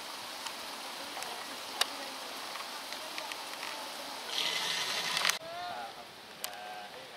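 Steady rushing of running water with scattered small clicks and knocks. A louder burst of rushing noise starts about four seconds in and stops abruptly a second later, followed by faint distant voices.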